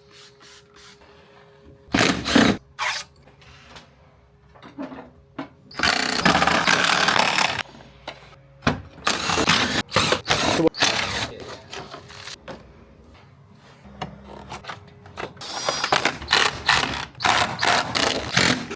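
Power tool running in short bursts, with clicks and knocks of hand tools, while car body parts are fastened on. The longest run lasts about a second and a half, a little over a third of the way in.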